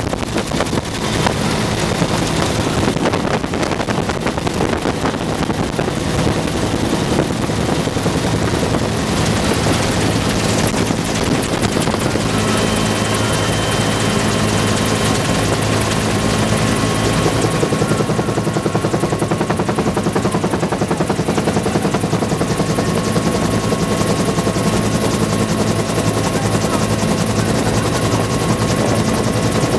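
Bell UH-1 Huey helicopter in flight, heard from inside its cabin with the doors open: steady, loud rotor and engine noise with a thin high whine running over it.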